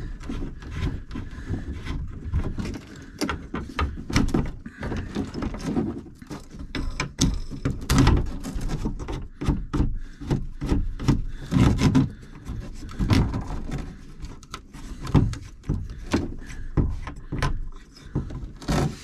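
Irregular clicks, dull knocks and rubbing as a plastic ring nut is turned off the back of an RV shower faucet by hand, the hand and fitting bumping against the wooden wall panel.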